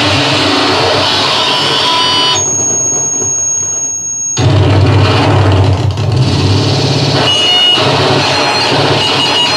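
Harsh electronic noise from an analog synthesizer run through a BOSS Metal Zone distortion pedal and a Sherman Filter Bank 2, shaped live by turning the filter's knobs. About two and a half seconds in, the dense noise drops away to a thin steady high whistle for about two seconds, then comes back louder with a heavy low hum.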